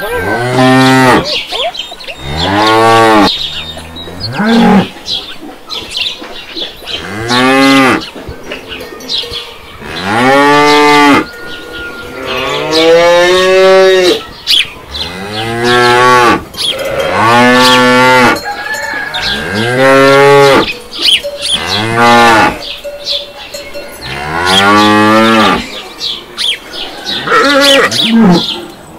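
Cows mooing over and over: about a dozen long, loud calls, each rising and then falling in pitch.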